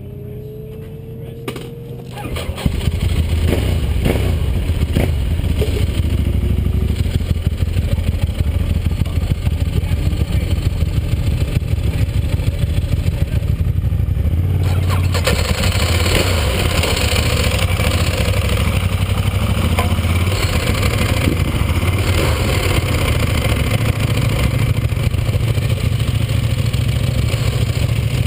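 Ducati 1198S's V-twin engine being started, catching about two and a half seconds in, then idling steadily.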